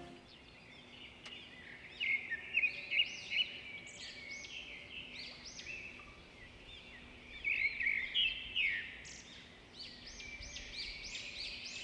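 Many small birds chirping: a dense, overlapping chatter of short high chirps that grows louder about two seconds in and again about eight seconds in.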